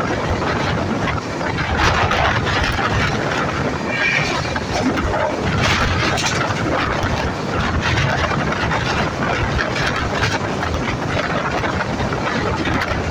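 Indian Railways passenger coach running at high speed, heard from its window: a steady rush of wind and wheel-on-rail noise, with scattered clicks of the wheels over rail joints.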